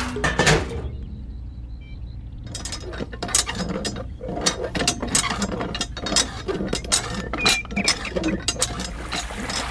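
Quick, irregular mechanical clicking and clinking of small hard parts, a dense run of sharp clicks starting about two and a half seconds in after a short duller stretch.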